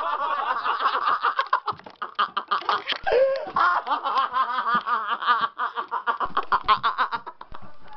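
Several people laughing hard together, with rapid bursts of cackling and snickering.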